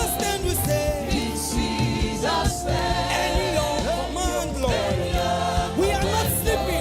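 Gospel music with a choir singing over a full backing band, with bass and drums.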